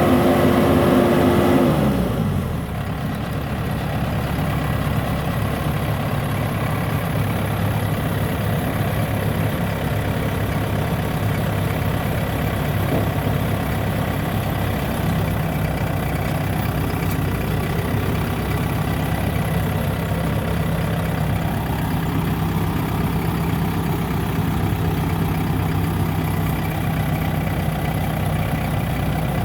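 Bimo Maxxi rice combine harvester's engine running fast, then dropping in pitch about two seconds in and running on steadily at a lower speed.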